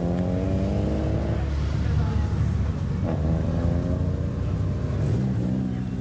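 Engine of a lowered Mitsubishi Lancer Evolution, a turbocharged inline-four, accelerating as the car drives past and away, its exhaust note rising in pitch over about the first second. Near the end a second car's engine comes in, running steadily as it approaches.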